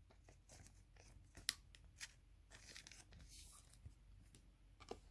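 Faint rustling and a few light clicks of baseball trading cards being handled and slid apart, with one sharper click about a second and a half in and another near the end.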